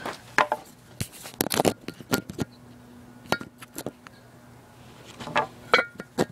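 Handling noise of a phone camera being picked up and set down on gravel: a string of sharp knocks, scrapes and clinks close to the microphone, the loudest near the end as a finger brushes over it.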